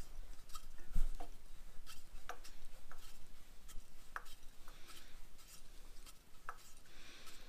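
Scattered small clicks and light rubbing of a compression gauge's hose fitting being threaded by hand into a small engine's spark plug hole, with one louder knock about a second in.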